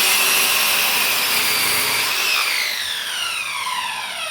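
Handheld power tool on wood: the motor runs at full speed with a high whine, then is let off about two seconds in and winds down, its pitch falling steadily.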